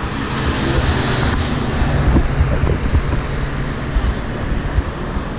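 Uneven low rumble of wind and handling noise on an action camera's microphone, over faint street and traffic noise.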